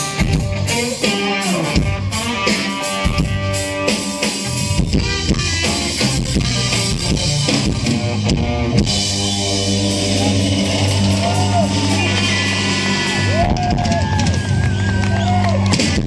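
Live rock band with electric guitars, bass and drums playing: busy drumming and chords, then from about nine seconds in a long held chord ringing out, with bending lead-guitar notes over it.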